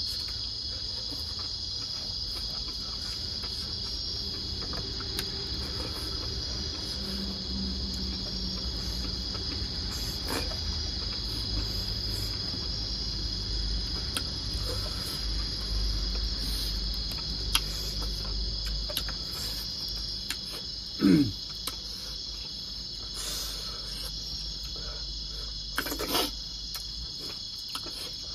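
Steady high-pitched insect chorus, with faint clicks of chewing and of fingers picking at food. A short sound falling in pitch is the loudest moment, about three quarters of the way through.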